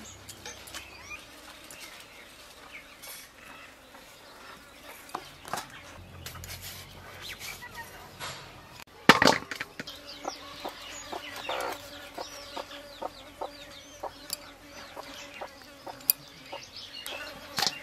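Chickens clucking, with scraping and cutting against a hand-held iron boti blade as potatoes are sliced and fish scaled. A sharp loud scrape about halfway through and another near the end.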